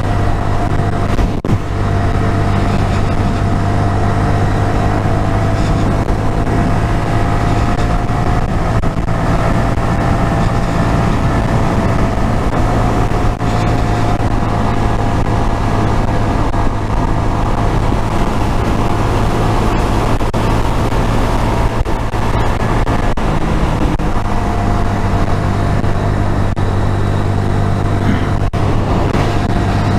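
Honda MSX125SF (Grom) single-cylinder 125 cc four-stroke engine pulling steadily at cruising speed on the open road, with wind noise on the rider's camera. The engine note holds almost constant, easing slightly for a while midway, then picking up again.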